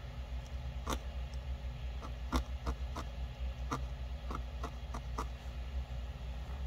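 Wooden-handled felting needle making small, light pokes into a tiny ball of black wool on a felt mat: about ten faint, irregular ticks, stopping a little past five seconds in. A steady low hum runs underneath.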